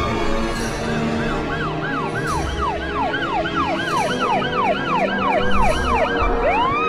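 Electronic soundscape of siren-like whoops, each rising and falling in pitch, repeating a few times a second and overlapping in echoes, over a steady low drone with faint regular ticks.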